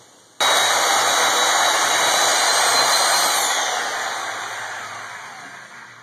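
Handheld electric saw cutting into the steel shell of a scroll compressor, starting abruptly about half a second in. After about three seconds the motor is let go and winds down, its pitch sliding lower as the sound fades away.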